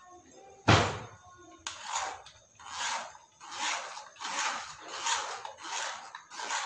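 A spoon scraping and pressing wet blended pulp through a stainless-steel mesh strainer, straining out the juice, in a regular run of about seven scraping strokes, one every second or so. A single sharp knock comes about a second in.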